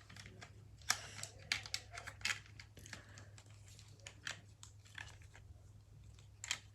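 Handling noise from fastening a small plastic fidget toy keychain: irregular sharp clicks with some light rustling and crinkling.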